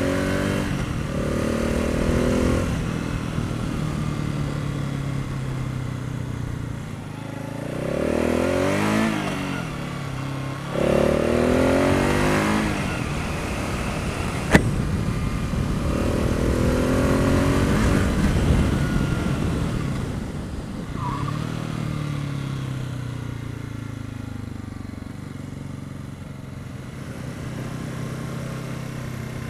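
Husqvarna TR 650 Strada's single-cylinder engine under way, its pitch climbing in several pulls as the bike accelerates, with breaks between them at the gear changes, over steady wind rush. A single sharp click about halfway through.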